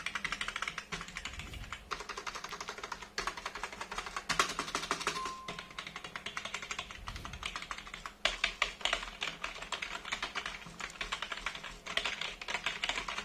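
Rapid typing and key presses on a Multilaser Red TC-191 wireless keyboard, a dense run of key clicks with a few short pauses. The keys are not as quiet as the specifications claim.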